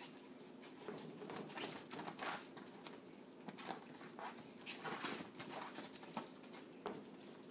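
Puppies scrabbling at the fabric and mesh wall of a soft playpen: irregular spurts of scratching and rustling as they climb.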